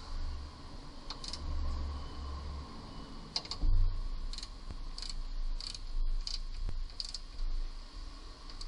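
Ratchet wrench clicking in short runs, about every half second to a second, as a hand turns a bolt at the rear bushing of a Ford Focus front lower control arm, with one louder metallic knock about three and a half seconds in.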